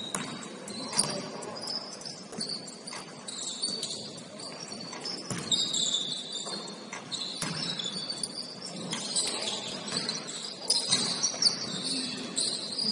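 Basketball shoes squeaking on a gym court during play, many short high squeaks, with occasional thuds of the ball bouncing.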